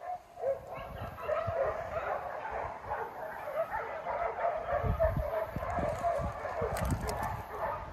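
A pack of dogs barking and yipping all at once, many overlapping barks running on without a break, with low rumbles of wind or handling on the microphone.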